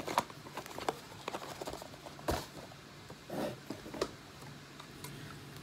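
Small objects being handled and unpacked: scattered light clicks and rustles, with one sharp knock a little over two seconds in. A faint steady hum from a running electric fan lies underneath.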